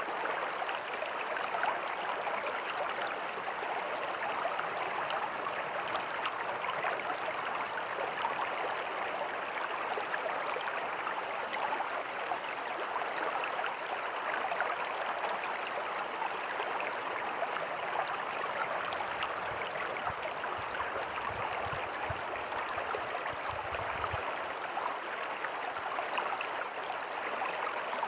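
Small creek running over rocks with a tiny waterfall: a steady, even splashing and babbling of water.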